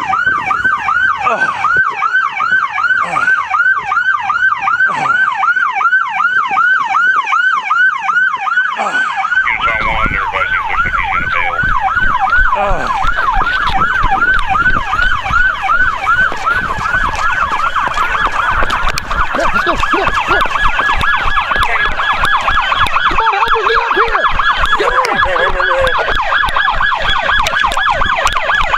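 Police siren in a fast yelp, its pitch sweeping up and down about three times a second without a break. About a third of the way in, a low rumble with scattered ticks joins it.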